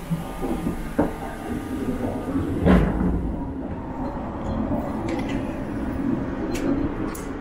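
Inside a 285 series sleeper train (Sunrise Izumo) running: a steady low rumble of the moving carriage. There is a sharp click about a second in, a heavier thump just before the third second, and a few light clicks near the end.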